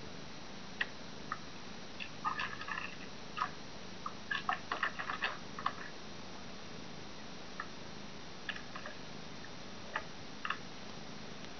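Tiny high-pitched squeaks from eight-day-old kittens as they nurse, coming in short scattered clusters, busiest from about two to six seconds in, over a faint steady hiss.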